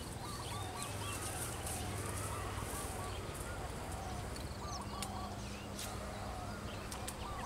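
Birds calling in the background: a run of short, repeated calls, over a steady low rumble.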